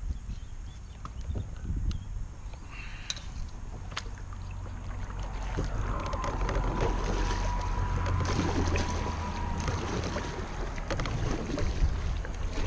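Water sounds around a fishing kayak on a lake, with a low wind rumble on the microphone and scattered small knocks. A faint steady whine is heard for a few seconds in the middle.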